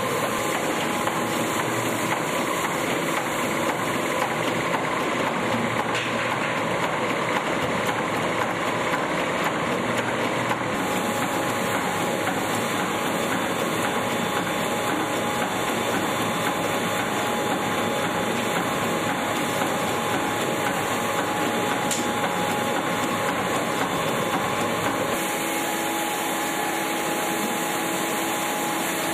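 Olive oil mill machinery running steadily during pressing, a continuous mechanical drone with a constant hum under it.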